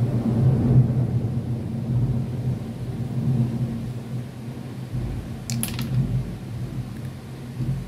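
A steady low hum throughout, with a brief cluster of sharp clicks about five and a half seconds in as small plastic building bricks are pressed together.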